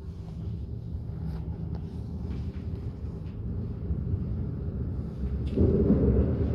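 Steady low rumble of a moving train heard from inside the carriage, slowly growing louder, with faint clicks and a louder surge of rumble about five and a half seconds in.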